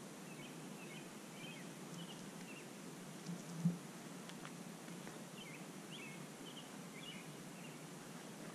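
Faint outdoor ambience at night: a steady low hiss with scattered short, high chirps in small clusters, and a single knock about three and a half seconds in.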